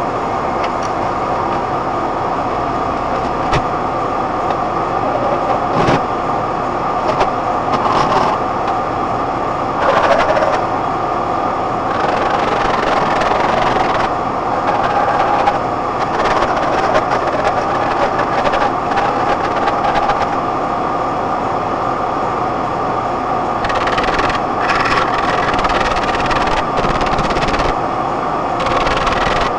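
Steady running noise of a vehicle on the move, with short knocks and clatters now and then, in a cluster near the end.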